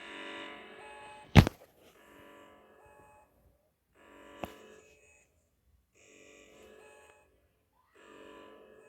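Greek emergency alert tone: a chord of steady electronic tones sounding in bursts about a second long, repeating about every two seconds and growing fainter. A sharp click about a second and a half in, and a fainter one about four and a half seconds in.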